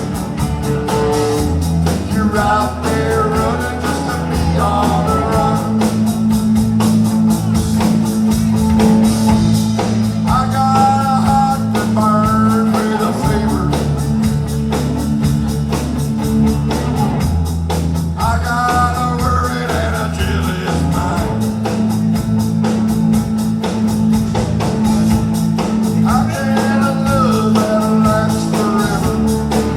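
Live band music with guitar and a steady bass line, and sung melody phrases that come and go every few seconds.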